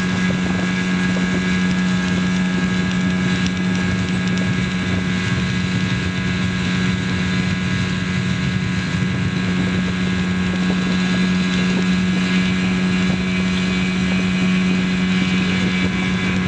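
Outboard motor of a small boat running at a constant speed, its drone holding one steady pitch throughout, with wind buffeting the microphone.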